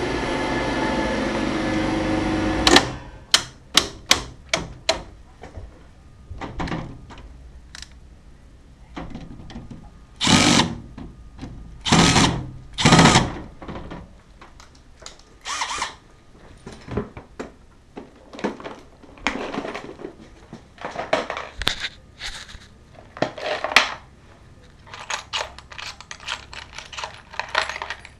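A Kärcher MV6P Premium wet-and-dry vacuum cleaner running steadily, cut off suddenly about three seconds in. Then a run of irregular knocks, clicks and clatters.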